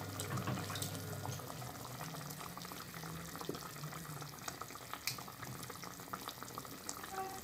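Chicken broth simmering in a pot on a gas stove: a steady, quiet bubbling with many small pops as carrot pieces are added to it.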